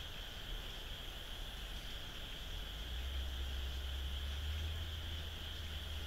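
Steady, high-pitched chirring of night insects. A low rumble sits beneath it and grows stronger about halfway through.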